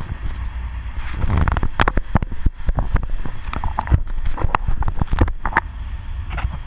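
Low wind rumble on the camera microphone, with scattered sharp clicks and knocks at irregular intervals from fishing gear and the aluminium boat as a hooked sturgeon is played on rod and reel.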